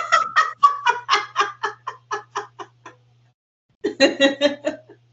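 Two women laughing hard in rapid rhythmic bursts of ha-ha-ha that fade out over about three seconds. After a short pause, another burst of laughter comes near the end.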